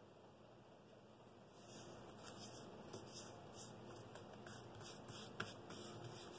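Hands rubbing a paper pattern flat onto blue painter's tape on a wood blank: faint, papery swishes of the palms and fingers, starting about a second and a half in, with a small click near the end.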